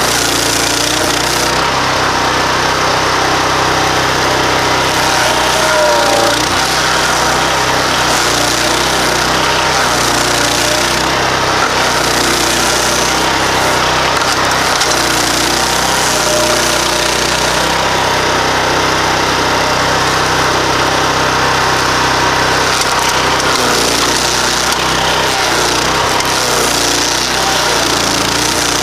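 15 hp Loncin-powered stump grinder running steadily, its nine-tooth cutting wheel grinding into a wooden stump: an engine drone under a continuous chipping, grinding noise.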